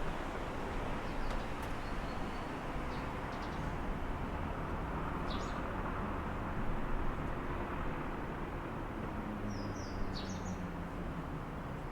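Steady hum of distant city traffic, with a few short bird chirps now and then.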